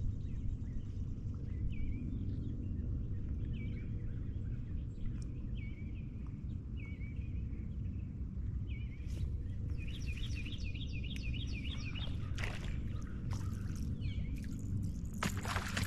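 A songbird calling outdoors: short chirps repeated about once a second, then a quick series of about a dozen high notes about ten seconds in, over a steady low rumble. A few brief rustling noises near the end.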